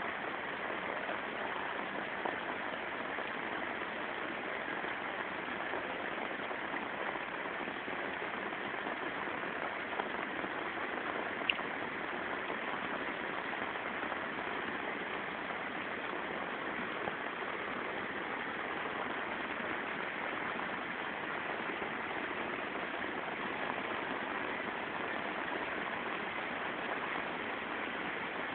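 Heavy monsoon rain falling in a steady, even hiss, with a faint tick about eleven seconds in.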